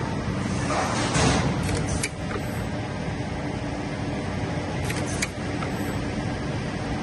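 Extrusion line with a pneumatic punching unit running: a steady machine hum, a short burst of hiss about a second in, and a few sharp metallic clicks around two and five seconds.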